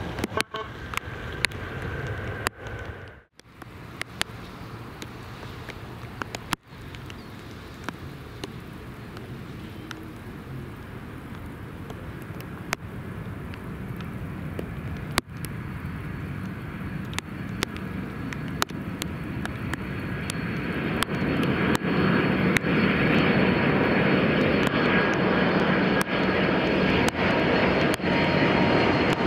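Jet airliner engines heard from close to the runway: a steady noise that grows clearly louder about two-thirds of the way through as the aircraft nears.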